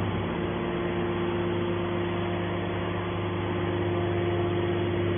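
Can baler's power unit running steadily: a constant mechanical hum with a held drone.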